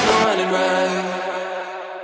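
Background music: a held, sustained chord that fades as its bass and high end drop away, a quiet break before the next section.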